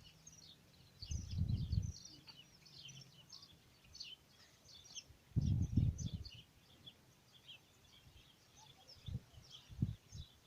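Many small birds chirping and twittering together in rapid, overlapping calls, with several short low rumbles breaking in.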